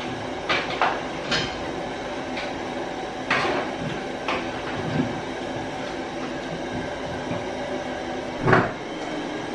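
A metal skimmer stirring thick soup in a large aluminium pot, clanking and scraping against the pot's sides in scattered knocks. The loudest knock comes near the end.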